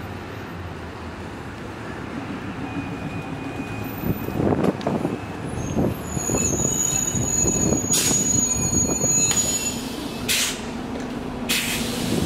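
A New Flyer C40LF CNG transit bus pulls in to a stop. Its engine hums low and steady. A high steady brake squeal lasts a few seconds as it slows, and then several short hisses of air follow as it halts and opens its door.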